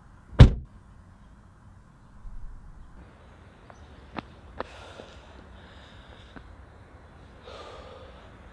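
A single loud thump about half a second in, then two faint clicks about a second later, and a woman's breath near the end.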